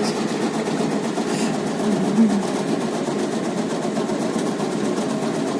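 Motorised tobacco-cutting machine running steadily, shredding tobacco leaves.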